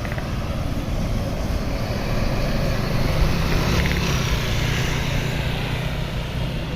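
Road traffic noise with a passing bus's engine running, its low hum swelling in the middle and fading toward the end.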